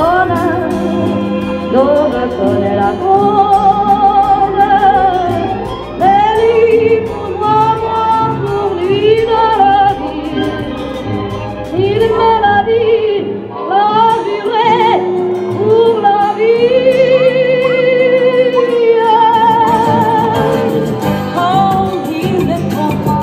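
Music with a singing voice, the singer holding long notes that waver in pitch over a steady accompaniment.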